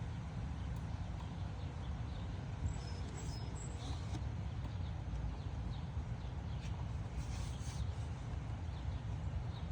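Strong wind buffeting the microphone, a steady low rumble, with a few faint high chirps in the middle.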